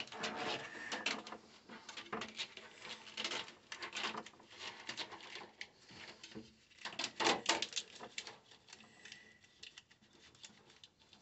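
Hands handling wires and plastic wire loom in a car's engine bay: irregular small clicks, taps and rustling, with a busier flurry past the middle that thins out near the end.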